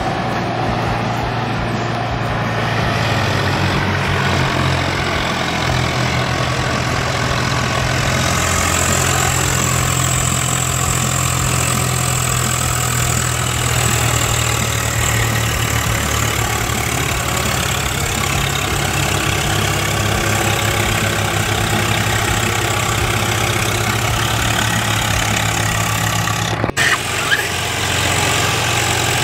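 Swaraj 834 tractor's diesel engine running steadily under heavy load, towing a mud-stuck tractor and loaded sugarcane trolley on a rope. There is a sudden break near the end.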